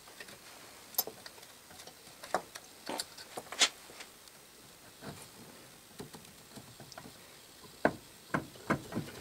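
Scattered light metallic clicks and knocks as the finned cylinder end of an antique Essex hot-air (Stirling) engine is handled and worked off by hand. The clicks come singly at first, then four close together near the end.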